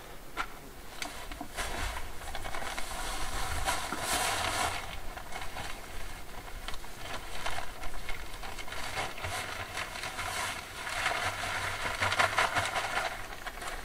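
Irregular scraping and crunching of hand tools working the ground, with scattered knocks.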